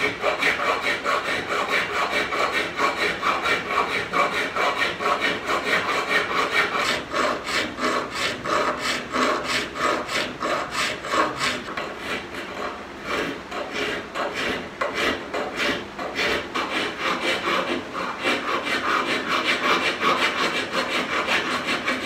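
Hand file rasping across the steel body of a shoulder plane in a steady rhythm of back-and-forth strokes, shaping the plane's mouth to its line.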